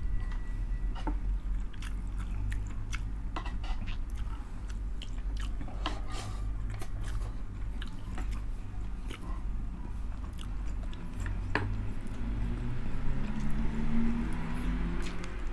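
Close-miked chewing of dinuguan pork blood stew and rice, full of wet lip smacks and sharp mouth clicks. A low hum of 'mm' comes near the end.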